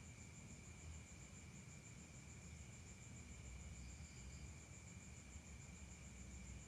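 Faint, steady high-pitched trill of crickets with an even pulse, over a low background rumble.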